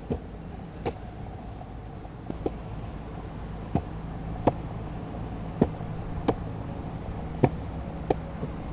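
A series of about ten sharp knocks at irregular intervals, roughly one every half-second to second, over a steady low hum.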